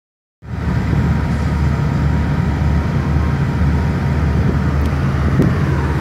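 Volvo semi truck's diesel engine idling: a steady low rumble.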